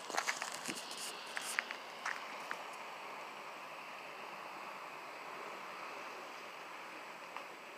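A few sharp clicks and rustles in the first couple of seconds, then a steady, even outdoor hiss.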